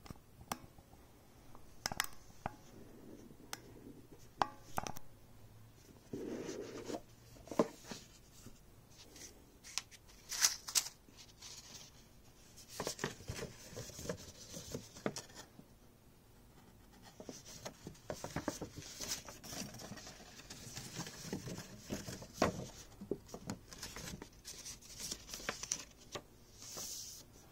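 Hands handling a cardboard presentation box and its paper insert: scattered taps and clicks against the card, scraping as the box is worked open, and stretches of paper rustling as a folded sheet is opened out.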